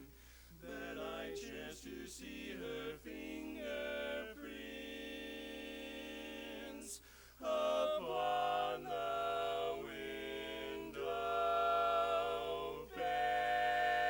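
Barbershop quartet of male voices singing a cappella in close four-part harmony: quick short notes at first, then long held chords, with a brief break about seven seconds in.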